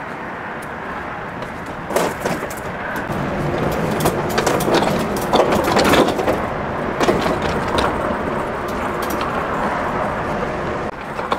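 Handling noise from an animatronic figure wrapped in a black plastic bag being carried and moved by hand: a run of knocks, cracks and scrapes, busiest in the middle, over steady background noise.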